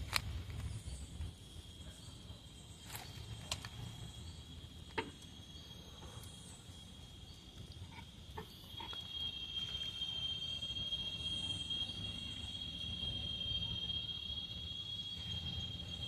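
Insects calling in a steady, high, unbroken trill that grows louder about halfway through, over a low rumble, with a few sharp clicks in the first half.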